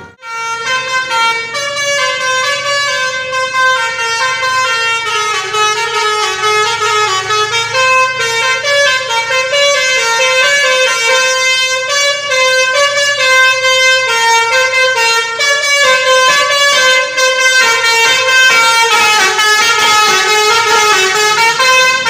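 Telolet musical horn playing a continuous tune, its notes stepping quickly up and down.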